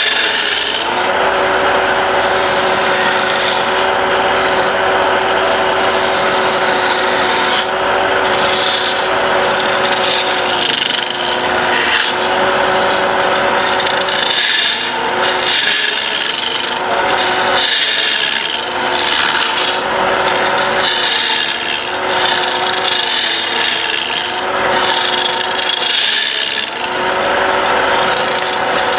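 Wood lathe running with a tool held against the spinning wooden workpiece, a steady machine hum under a rough scraping cut. The cutting comes in passes that break off briefly every few seconds.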